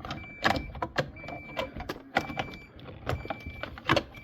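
Plastic clicks, knocks and rattles as a refrigerator's ice-compartment cover is slid back into place, several sharp strikes spread irregularly. A faint high beep repeats about once a second behind them.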